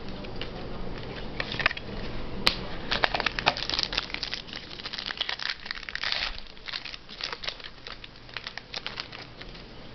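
Crinkling and rustling of packaging while trading cards are handled, in many quick irregular crackles that are busiest in the middle.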